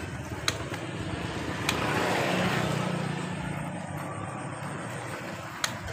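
A motor vehicle engine running, growing louder about two seconds in and then slowly fading, with a few sharp clicks on top.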